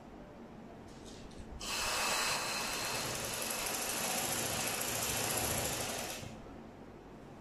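Black domestic sewing machine driven by an add-on electric motor, running steadily at speed as it stitches through fabric; it starts about two seconds in and stops about a second before the end.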